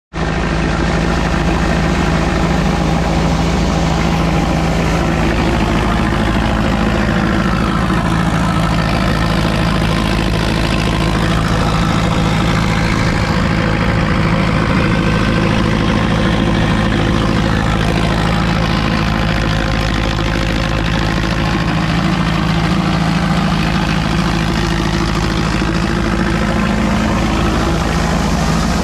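Haramba thresher running with its driving engine at a steady speed: a continuous, even machine hum with a steady low drone.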